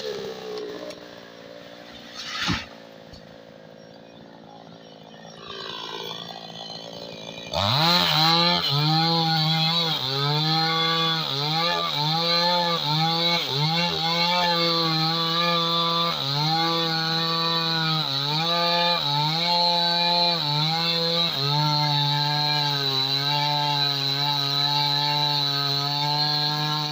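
New West 628 two-stroke chainsaw cutting teak. It is quieter at first, with a single knock about two and a half seconds in. About seven and a half seconds in it revs up to full throttle, its pitch dipping briefly again and again as the chain bites into the wood.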